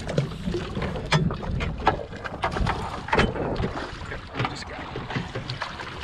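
Wind and water noise on a small fishing boat, with repeated sharp knocks and clatter of gear being handled.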